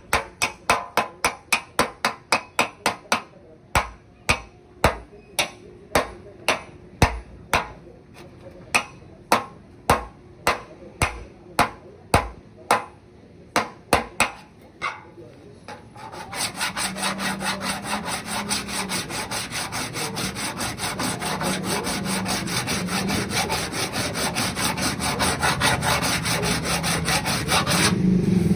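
Hammer taps on a car's sheet-metal body panel during dent repair, sharp strikes about two a second. About halfway in they give way to a fast, dense run of strokes on the panel, which stops just before the end.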